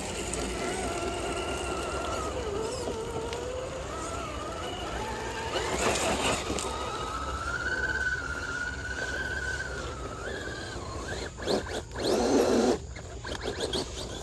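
Electric motor and gear whine of radio-controlled scale crawlers, the pitch rising and falling with the throttle as they climb over roots. There is a brief louder crunch about six seconds in and a burst of tyres scrabbling in dirt and dry leaves about twelve seconds in.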